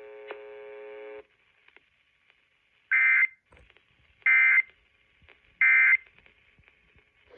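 A steady tone stops about a second in. Then come three short bursts of screechy digital data, about 1.3 s apart: the Emergency Alert System's SAME end-of-message code that closes the broadcast.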